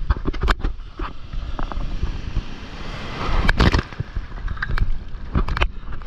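Breaking surf and whitewater splashing around and against a camera at water level. Water slaps and drips hit the housing in sharp clicks, and wind rumbles on the microphone. A louder rush of water with heavy splashes comes about three and a half seconds in.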